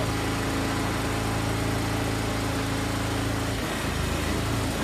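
A small engine running steadily at idle, its note changing about three and a half seconds in.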